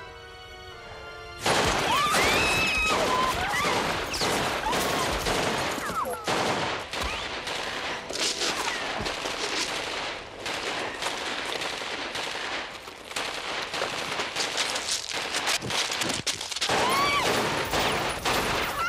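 A second or so of music, then sudden heavy machine-gun fire breaking in about a second and a half in and running on in dense bursts with brief lulls.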